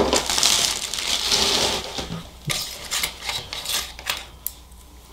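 A knock at the start, then crackling plastic rustling for about two seconds, then scattered light clicks and clinks as small metal head-unit release keys are picked out of a plastic bag on a workbench.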